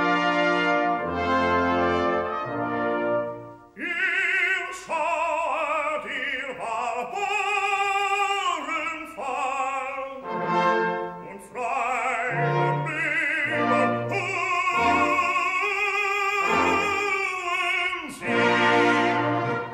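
Operatic orchestral music: brass hold sustained chords, then from about four seconds in a voice sings in full operatic style with wide vibrato over the orchestra, in phrases broken by short brass chords.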